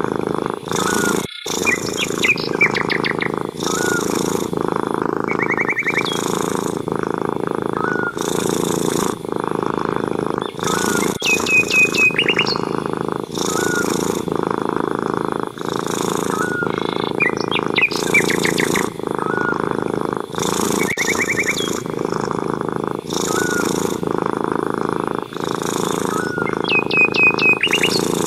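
Domestic cat purring steadily, the purr pausing briefly about once a second with its breathing. Small birds chirp and trill over it now and then.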